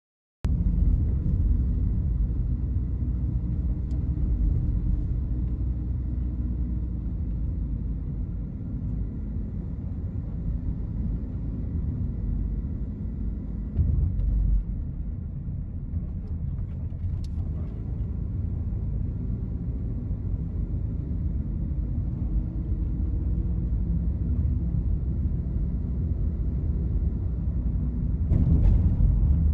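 Steady low rumble of road and engine noise inside a moving car, growing louder near the end.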